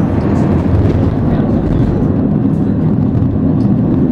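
Cairngorm Mountain funicular railway car running along its track: a steady, loud, low rumble.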